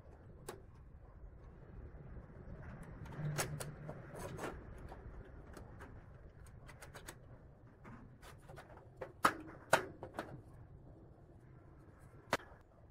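Scattered sharp metal clicks and clinks as a square steel tube and a steel hinge bracket are handled and fitted together by hand. The two loudest clicks come about half a second apart roughly two-thirds of the way through, with one more near the end.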